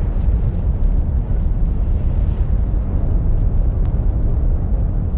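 A loud, steady, deep rumble with a few faint crackles, like a fire or explosion sound effect.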